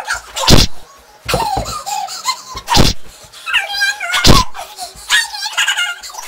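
Sped-up, chipmunk-high children's laughter and squeals during a play fight, broken by about four loud thumps from the tussle, roughly a second and a half apart.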